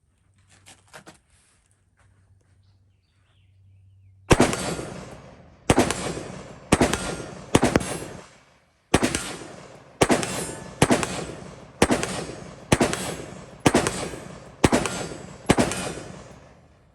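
ATI AR-15 pistol with a 7.5-inch barrel fired semi-automatically: about a dozen shots at roughly one a second, each trailing off in a long echo. A few light handling clicks come before the first shot.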